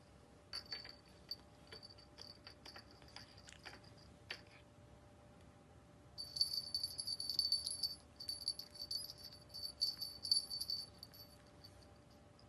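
Small jingle bells on cats' bandanas tinkling as a cat moves, in two spells: light jingling from about half a second in to about four seconds, then louder, busier jingling from about six seconds to about eleven.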